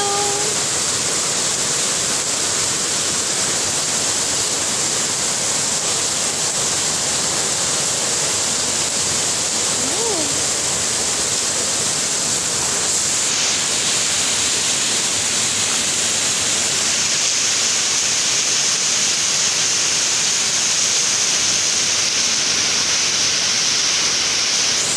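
Steady, heavy rain, an even rushing hiss throughout. A kitten gives one faint meow about ten seconds in.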